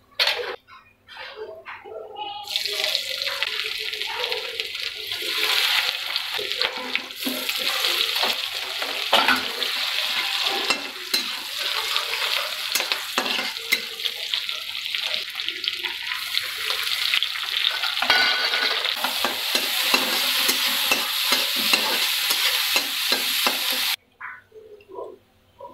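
Masala frying in hot oil in a metal kadhai: a steady sizzle starts about two and a half seconds in and cuts off suddenly near the end. Throughout the sizzle, a steel spatula stirs and scrapes against the pan, making fine clicks and scrapes.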